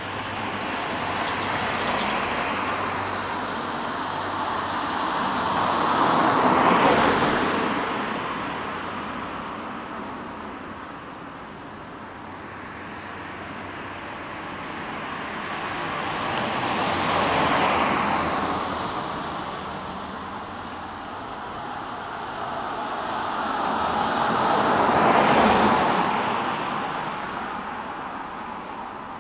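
Road traffic: three vehicles pass in turn, each a wide hiss of road noise that swells and fades over several seconds.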